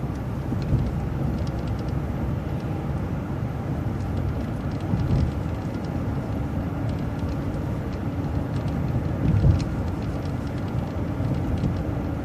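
City transit bus running along the road, heard from inside: a steady engine and road rumble with small scattered rattles. A faint steady hum comes in about halfway through.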